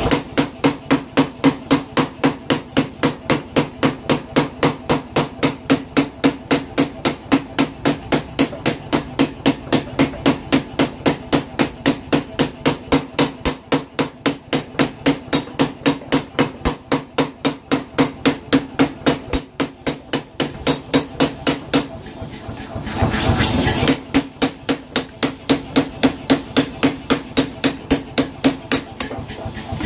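A blacksmith's power hammer beating a bone-chopping cleaver blank on the anvil die in a fast, even rhythm of about three blows a second, over the steady hum of the machine. The blows break off briefly about three-quarters of the way through, with a short burst of louder noise, then resume.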